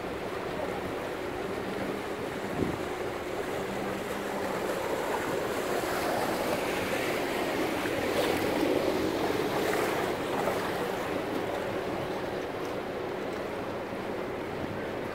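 Motorboat engine running steadily under way, with water rushing along the hull. The rush of water swells for a few seconds in the middle, then eases.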